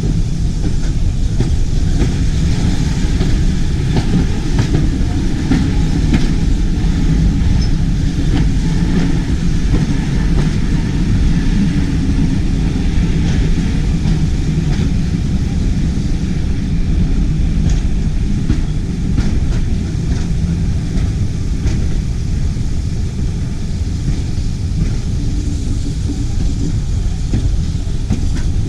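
Heritage railway passenger carriage running along the track, heard from its window: a steady rumble of wheels on rails with scattered clicks as the wheels pass over rail joints.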